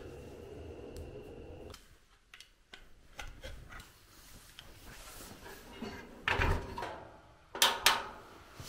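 A butane torch lighter's jet flame hissing steadily for nearly two seconds, then scattered clicks and knocks as an electric plug and cord are handled and pushed into a wall socket, with the loudest clacks late on.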